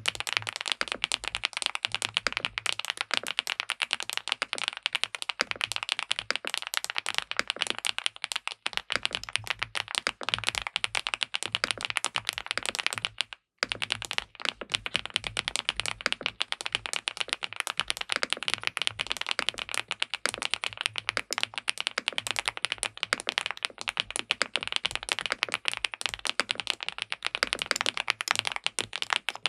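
Fast, continuous typing on an SPM PL87W Mongdol tenkeyless mechanical keyboard with linear switches and a PC plate: a dense stream of keystrokes, broken by a very short gap about halfway through.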